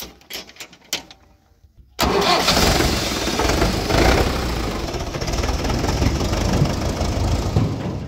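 A few light clicks, then the Swaraj 843 XM tractor's diesel engine starts up suddenly about two seconds in and runs loudly and steadily.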